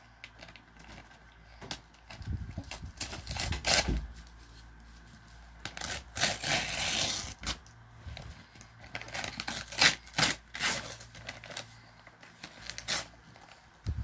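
Red gift-wrapping paper being torn off a present in irregular rips and rustles, the longest rip lasting from about six to seven and a half seconds in.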